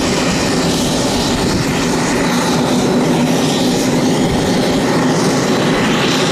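Air Tractor AT-802F Fire Boss's Pratt & Whitney PT6A turboprop running at taxi power: a steady propeller drone with a broad turbine hiss above it.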